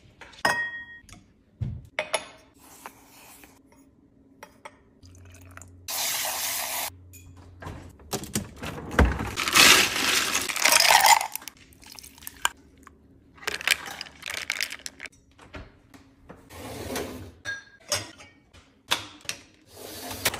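Kitchen handling sounds: a cabinet door and clinking dishes, then ice cubes scooped and rattling in a freezer ice bin, the loudest part, around the middle. A dishwasher rack is handled near the end, with scattered knocks and clicks throughout.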